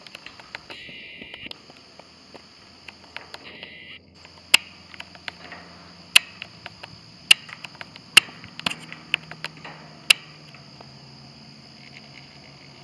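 Steady insect chorus, a constant high-pitched buzz, broken by several sharp clicks between about four and ten seconds in.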